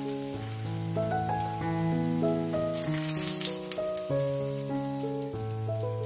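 Background music of held notes over a slow bass line, with vegetable oil sizzling under stuffed flatbreads frying in pans. The sizzle grows louder for about a second, around three seconds in, and there is a single sharp click.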